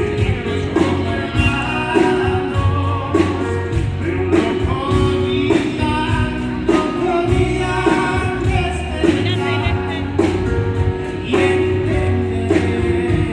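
Live band music with singing, carried by a steady drum beat and bass.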